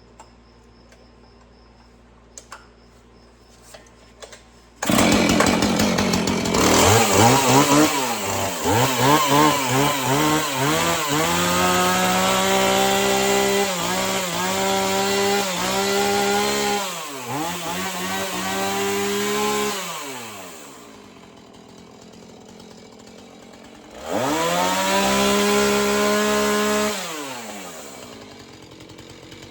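Husqvarna 445 two-stroke chainsaw engine firing up about five seconds in, blipped up and down a few times, then held at high revs for several seconds, dropping back to idle, revved again near the end and settling back toward idle. It is running really well.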